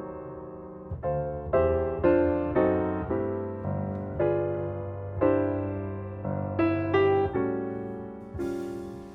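Background piano music: notes and chords struck about once or twice a second, each left to fade away.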